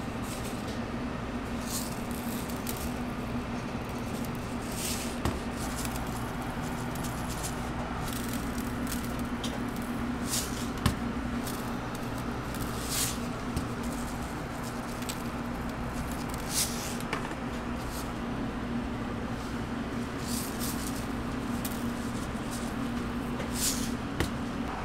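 A steady low hum of kitchen equipment, with scattered light clicks and short rustles of hands handling chocolate-glazed donuts and candy toppings on a metal wire rack. One sharper click comes near the middle.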